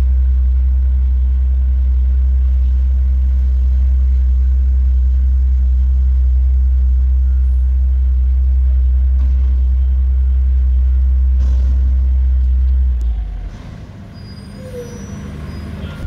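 Mack front-loader garbage truck's diesel engine running at steady high revs while the hydraulic lift arms dump a dumpster over the cab and come back down. The engine note drops off sharply near the end as the revs fall back.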